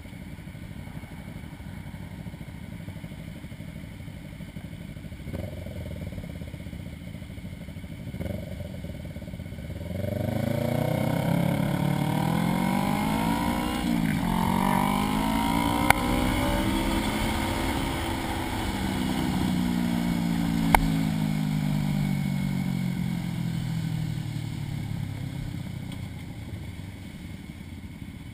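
Motorcycle engine running low and quiet, then pulling away about ten seconds in: the engine note climbs, dips once at a gear change and climbs again, then falls slowly as the bike slows. Two short, sharp clicks come during the run. The sound is muffled by a sealed action-camera housing.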